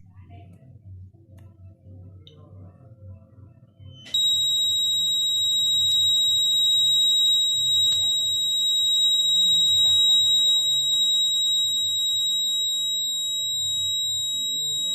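Homemade fire alarm's buzzer sounding one steady high-pitched tone that switches on suddenly about four seconds in and holds without a break.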